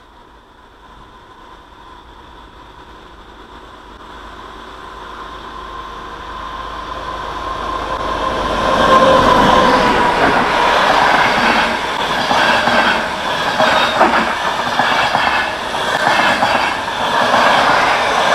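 Passenger train approaching and passing close by at speed. A faint steady whine and rumble grow louder for about nine seconds, then give way to loud rushing and the clatter of the carriage wheels over the rail joints as the carriages go by.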